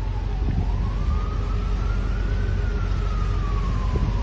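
Emergency vehicle siren wailing: its pitch slides slowly down, rises for about two seconds, then falls again, over a steady low rumble.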